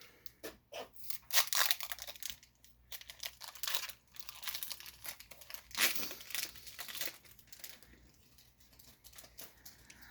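Foil wrapper of a Pokémon booster pack being crinkled and torn open, in a run of sharp crackling rustles that die down near the end.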